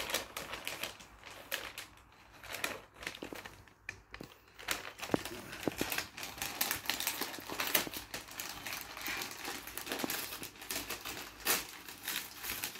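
Christmas wrapping paper crinkling and crumpling in the hands as a present is unwrapped, a stream of irregular crackles. It goes quieter for a moment about two to four seconds in.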